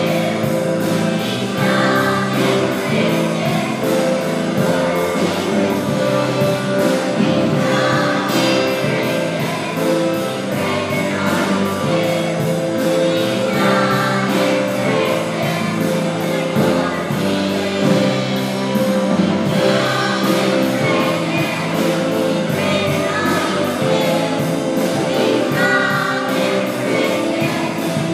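Children's choir singing a song to a musical accompaniment with a steady beat.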